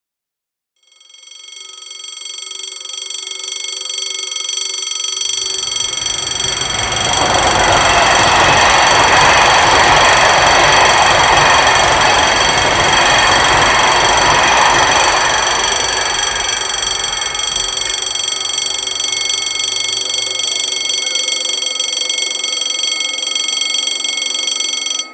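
Level-crossing warning bell ringing steadily, fading in about a second in. A train passes from about five seconds, a loud rushing rumble that swells and dies away by about eighteen seconds, while the bell keeps ringing until it cuts off suddenly near the end.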